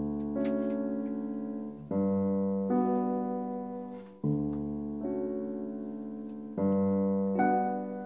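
Slow piano music: sustained chords struck about every two seconds, each left to ring and fade before the next.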